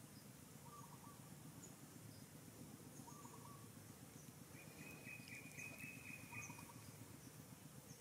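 Faint wild ambience: a short, three-pulse call repeats about every two and a half seconds, a longer trill runs through the middle, and tiny high chirps are scattered over a low background rumble.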